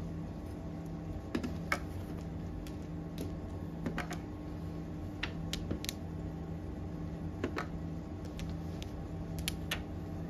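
Mahjong tiles clicking as players draw and discard them on an automatic mahjong table: sharp, irregular clicks every second or so over a steady low hum.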